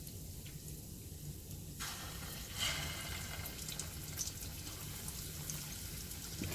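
Flour-coated chicken drumsticks going into hot oil: about two seconds in, a sudden burst of sizzling with crackles, which then carries on steadily as the chicken deep-fries.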